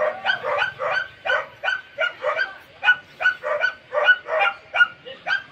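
A dog barking in a fast, steady run of short barks, about three to four a second.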